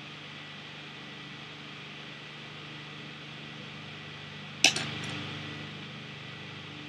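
One sharp click with a couple of quick smaller clicks after it, about two-thirds of the way through, over a steady low hum.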